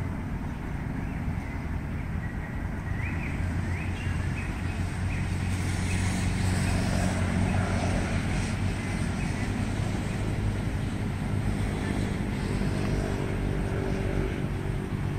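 Steady drone of a nearby motor-vehicle engine running, with a brief stretch of water splashing about halfway through as a cast net is hauled through a muddy pond.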